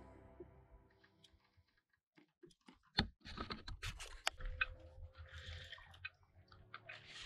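Background music fading out, then irregular sharp clicks and short crunching, rustling noises close to the microphone, as of gear or clothing being handled.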